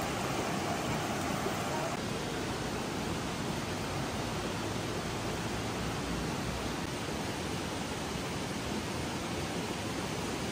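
River water rushing steadily over rocks: a constant, even rush of flowing water.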